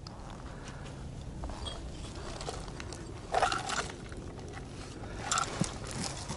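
Boots or hands scraping and crunching on rock and loose gravel in two short bursts, about three seconds in and again about five seconds in, over a steady low rumble.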